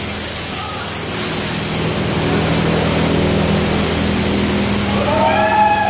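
Automatic car wash spraying high-pressure water over a car: a steady hiss of spray over a steady low hum. About five seconds in, a higher, wavering pitched sound joins in.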